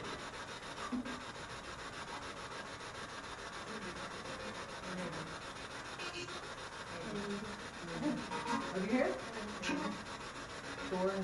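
Spirit box radio sweeping rapidly through stations: steady, choppy static with brief garbled voice fragments about halfway through and later, one of which the investigators hear as the name "Zane".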